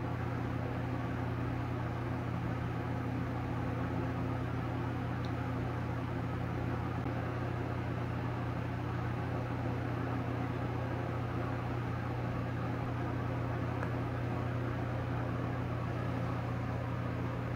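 A steady low hum with a light hiss, unchanging throughout: room background noise from a running appliance such as a fan or air conditioner.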